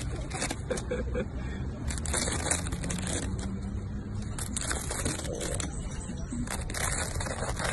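Crisp roast pork crackling skin crunching and crackling as a thin skewer pricks and scrapes along it, in irregular runs of small cracks. The sound is likened to crispy Thai crepes (khanom buang), and shows the skin is thin and crisp.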